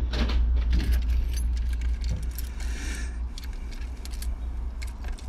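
Keys jangling and clinking: a quick, irregular series of light metallic clicks over a steady low rumble.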